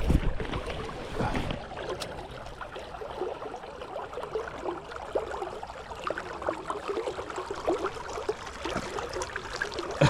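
Shallow creek water trickling and gurgling over rocks, with a low bump right at the start.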